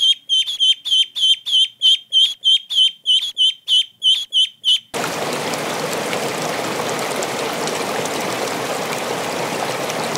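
Young white geese peeping, a quick run of high chirps about four a second. About halfway through it cuts off abruptly to a steady rush of bubbling aquarium water.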